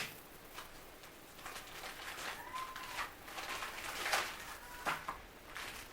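Light rustling and scattered clicks of paper and packaging being handled. A short, faint whistle-like tone comes about halfway through.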